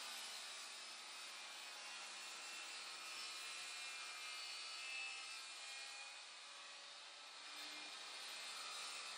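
Skilsaw circular saw running steadily, heard faintly as it cuts along a sheet of plywood.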